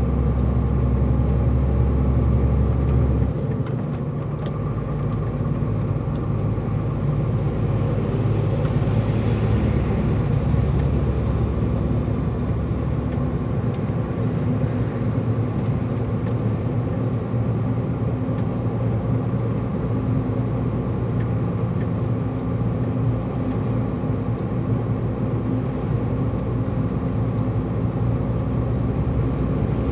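Truck engine running steadily under load, heard from inside the cab while climbing a mountain grade with an empty container. The deep low rumble drops off about three seconds in, and the rest of the drone holds steady.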